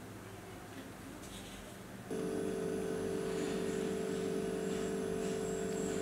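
A steady humming tone starts abruptly about two seconds in and holds evenly, over quiet room tone.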